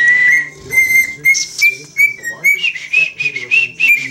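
Lutino cockatiel whistling: a long held note, then from about two and a half seconds in a quick run of short, slightly higher notes.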